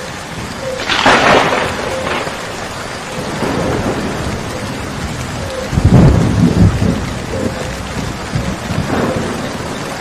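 Steady rain falling, with thunder: a crackling clap about a second in, the loudest deep rolling rumble around the middle, and a smaller rumble near the end.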